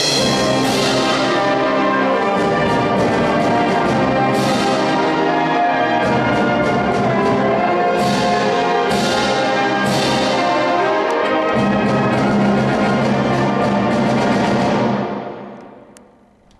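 Symphonic wind band playing a loud, full passage led by brass, punctuated by several sharp crashes. Near the end the sound stops and dies away in the hall's reverberation.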